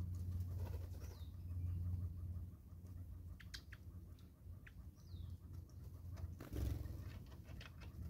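Wild birds at a feeding spot: a couple of short, high descending chirps and several sharp chip notes. About six and a half seconds in there is a brief flutter of wings. A low steady hum runs underneath.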